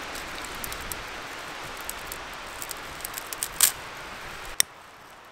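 Dry grass tinder bundle crackling and rustling as it is rubbed and fluffed between the hands, a run of sharp crisp crackles, the loudest about three and a half seconds in, over a steady hiss of wind. A sharp click comes shortly before the end, after which the hiss drops away suddenly.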